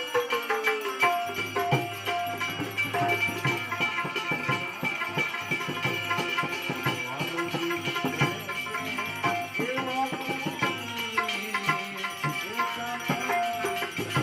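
Devotional bhajan music: a gliding melody line over held steady tones, with a constant beat of hand drums and jingling percussion.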